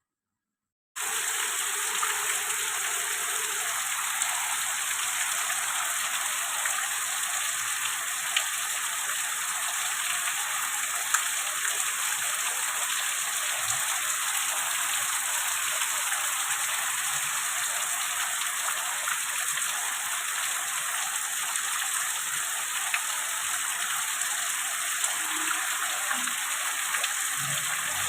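Waterfall rushing: a steady hiss of falling water that starts abruptly about a second in.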